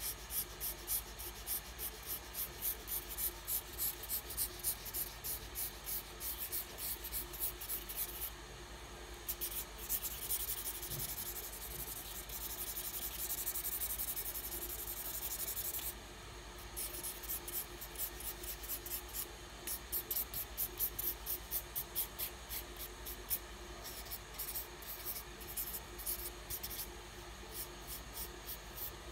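Colouring pencil scribbling on paper in quick back-and-forth strokes, about three a second. Around the middle the strokes pause briefly and give way to several seconds of continuous rubbing, then the quick strokes start again.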